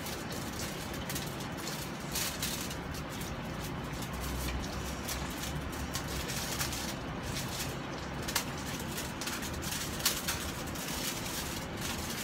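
Hands handling a raw chicken in a foil-lined roasting pan: a few light crinkles and taps of the aluminium foil over steady background noise.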